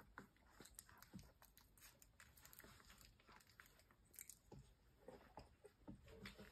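Faint scuffling and small clicking mouth noises of three-week-old puppies play-biting and mouthing each other on fleece bedding.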